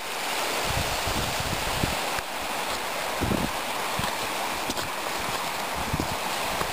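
Hill stream rushing over stones: a steady hiss of running water, with a few brief low buffets of wind on the microphone.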